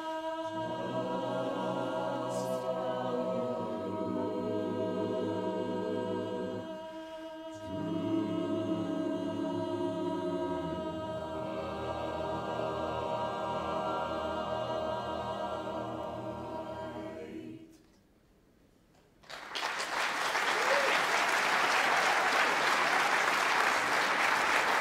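Mixed-voice barbershop chorus singing a cappella in long sustained chords, with a brief break about seven seconds in; the final chord fades out, and after about a second of silence the audience breaks into applause.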